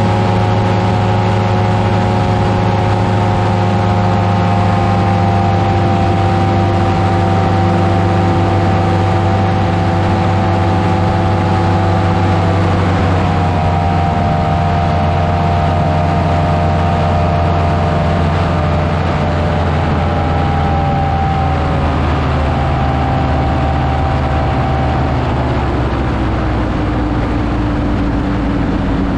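Buckeye Dream Machine powered parachute's engine and propeller running steadily in flight. The engine note dips slightly about halfway through, then settles a little lower near the end.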